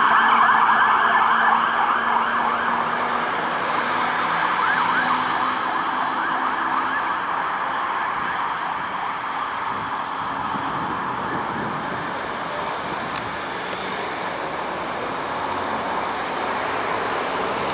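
Fire engine siren on a Scania P360 sounding a fast yelp, fading steadily as the truck drives away.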